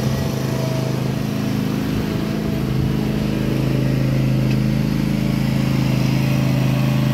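Gravely zero-turn riding mower's engine running steadily while mowing.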